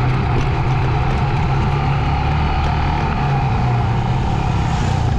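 Honda CG 125's small single-cylinder four-stroke engine running steadily under way, a constant drone with no change in speed.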